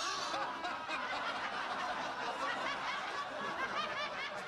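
A crowd of many people laughing and chattering at once. It starts suddenly after a moment of silence and holds at a steady level.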